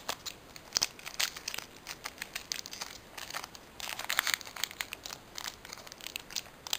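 Foil wrapper of a Pokémon trading-card booster pack crinkling in irregular flurries of crackles as hands grip and work it open.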